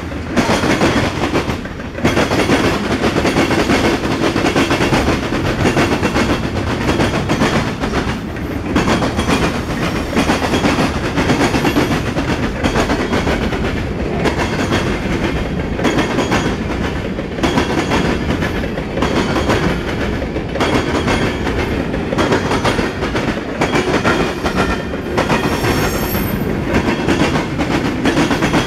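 Freight train cars passing: the steady rumble of steel wheels on the rails, with a fast run of clickety-clack from the wheels over the rail joints.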